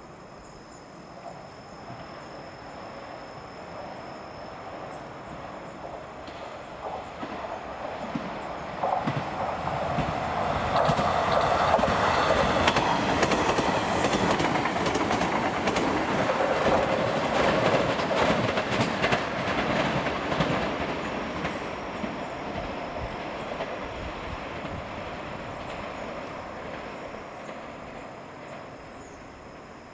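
JR West 381-series electric limited express train, four cars, running through a station at speed. A rising rush of wheels on rail builds to a loud, rapid clatter of wheels over the rail joints as it passes, then fades away as it leaves.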